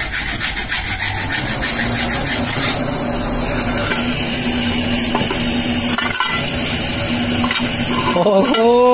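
Electric blower running steadily, forcing air into a drum furnace: a continuous rush of air with a steady low hum, pulsing a little near the start.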